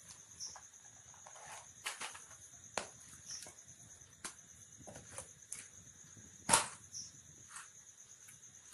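Clicks and knocks of plastic jewellery boxes and earrings being handled and opened on a tray, several scattered taps with one sharp knock about six and a half seconds in. A steady high chirring runs in the background.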